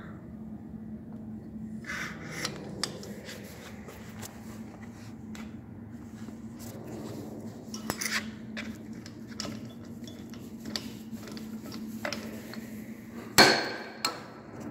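Handling noise at a steel tram trumpet coupling: scattered light clicks and metallic clinks over a steady low hum, with a louder metallic knock and a short ring near the end.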